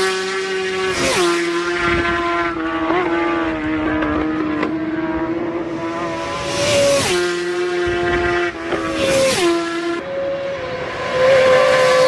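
Racing superbikes passing close by one after another at full speed, about five in all. Each engine's high note drops sharply in pitch as it goes past and then fades down the road.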